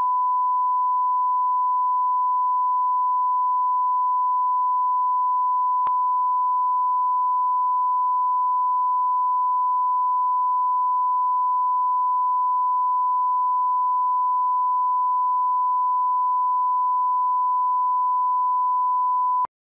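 Broadcast line-up tone: a steady 1 kHz reference beep played with colour bars at the head of a programme tape. It holds one unchanging pitch, with a faint click about six seconds in, and cuts off suddenly near the end.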